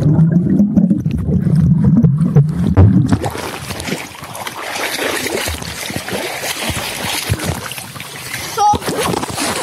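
Swimming-pool water heard with the camera underwater: a loud, muffled bubbling rumble for about three seconds, then splashing and dripping water once the camera comes up above the surface.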